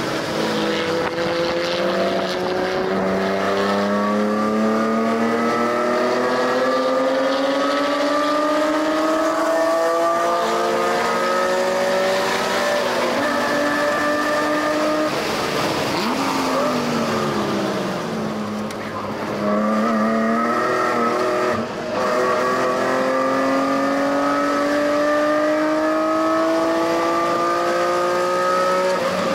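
2005 BMW E46 M3's S54 straight-six, fitted with aftermarket headers and a Magnaflow exhaust, pulling hard on a race track. The engine note climbs steadily for about twelve seconds, then falls away past the middle as the car slows. It breaks off for a moment for a gearshift, then climbs again.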